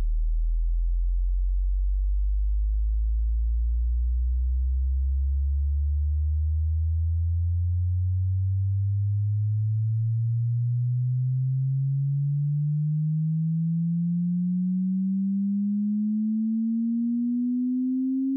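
Hearing-test tone: a single pure sine tone sweeping slowly and steadily upward in pitch, from a very deep hum to a low note, at an even loudness.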